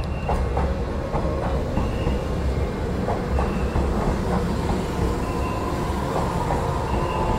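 JR 415 series electric train running slowly: a steady low rumble with wheel clicks over the rail joints, and wheel squeal setting in about five seconds in. A short high beep repeats about every second and a half.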